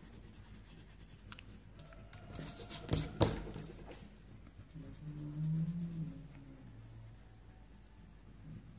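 Colored pencil scratching on paper as a drawing is shaded in, with a few sharp knocks about three seconds in.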